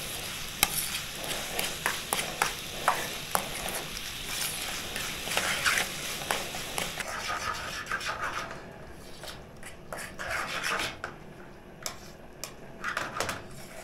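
Noodles frying in a pan as they are stirred: a utensil scrapes and clicks against the pan over a sizzling hiss, which eases off about halfway through.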